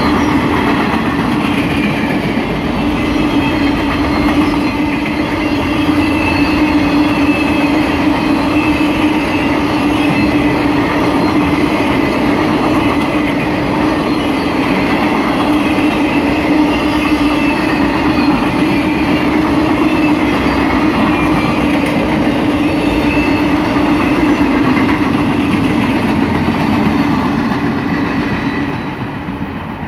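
Long string of loaded railroad flatcars rolling past close by: a steady rumble of wheels on rail with a steady hum in it. It fades near the end as the last car moves away.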